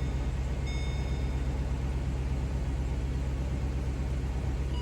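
A 2013 Chevy Caprice PPV's 6.0-litre V8 idling steadily, just started after a non-running spell now that the fuel pump control module is plugged in. A short, thin high electronic tone sounds about a second in.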